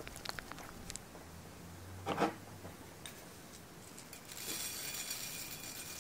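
Fingers sprinkling sesame seeds onto a soft dough bun make a light, even hiss of falling seeds lasting about a second and a half near the end. Before that come small taps and a brief soft scuff as hands press the bun down onto the burger.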